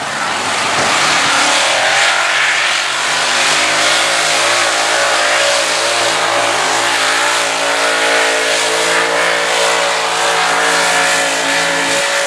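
Multi-engine modified pulling tractor's supercharged engines running at full throttle while dragging the weight transfer sled. The engine note swells about a second in and then holds steady with a slight waver.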